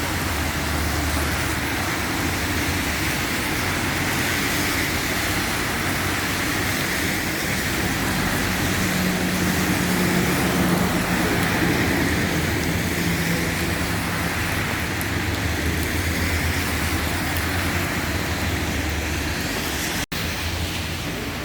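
Steady road-traffic noise in the rain: a continuous wash of vehicle and wet-street noise, with the low hum of an engine running underneath. A brief dropout comes near the end.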